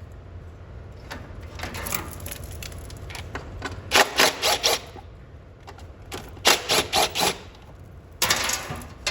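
Three short bursts of rapid sharp clicking, about five strokes each and a couple of seconds apart, from tool work on a walk-behind mower's self-propelled drive channel.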